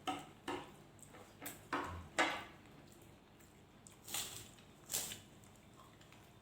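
Close-up eating sounds: chewing with short, wet mouth smacks and clicks, the loudest about two seconds in and two more near four and five seconds.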